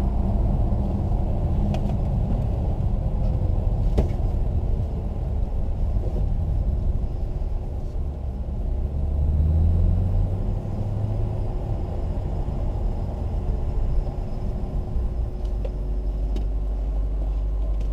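Car engine and drivetrain rumbling at low speed, heard from inside the cabin as the car rolls slowly to a near stop. The engine note swells briefly about halfway through.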